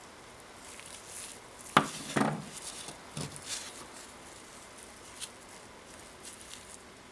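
Metal tools or parts being handled: a sharp knock about two seconds in, then a short rattle and a couple of lighter clinks.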